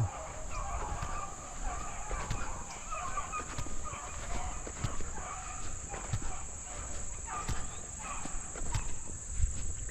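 A pack of rabbit hounds baying as they run a rabbit through the woods: several dogs' voices in many short calls, with one dog giving a short chop mouth.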